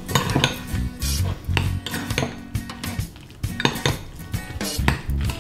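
Metal spoon stirring and scraping steel cut oatmeal in a ceramic bowl, with irregular clinks and knocks of the spoon against the bowl's sides.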